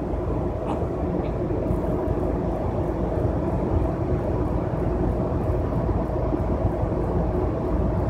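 Steady low rumble of a moving bus or train, heard from inside the passenger cabin, with a constant hum running through it.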